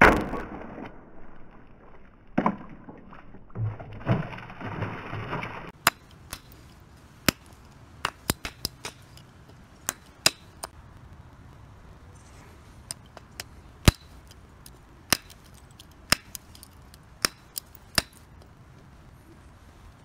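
A folding knife blade slashes through a plastic water bottle with a loud hit and a splash of water. Then comes a string of sharp, irregular snaps as the blade chops thin wooden skewers against a wooden block.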